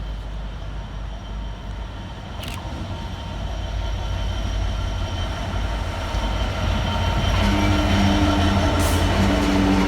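Class 66 diesel locomotive hauling a freight train through the station, a steady low rumble that grows louder over the first several seconds, with a steady low droning tone joining about seven and a half seconds in.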